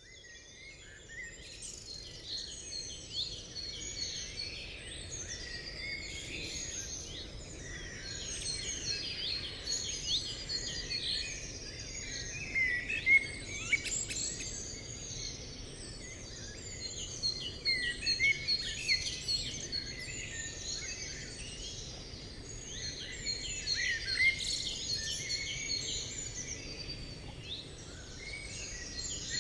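Many small birds chirping and calling at once in a dense, continuous chorus of short chirps and trills, over a low, steady background hiss.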